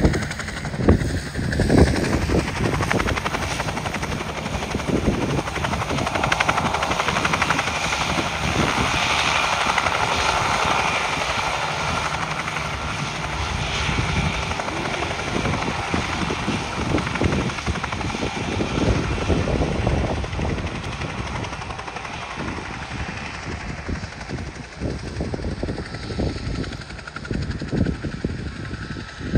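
Helicopter flying nearby: a rapid beating of rotor blades over engine noise, growing fainter near the end.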